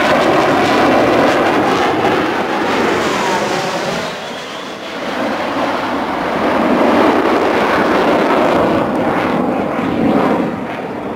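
F/A-18 Hornet jets flying past, a loud continuous jet noise with a falling whine about two seconds in. It dips around four seconds in, swells again twice, and falls away near the end.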